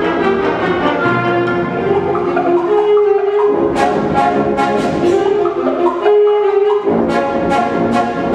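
Concert band playing sustained brass and woodwind chords. In the second half, two short runs of sharp percussion strikes come a few a second over the held notes.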